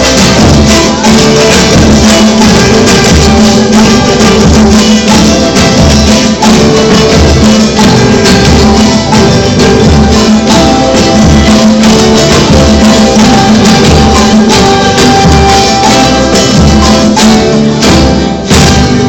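Music played with a tambourine and plucked strings over a steady beat, stopping near the end.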